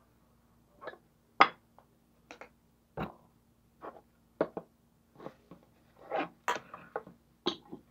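Close-up eating sounds: irregular wet mouth smacks and clicks from chewing watermelon, the loudest about one and a half seconds in, with a faint steady hum underneath.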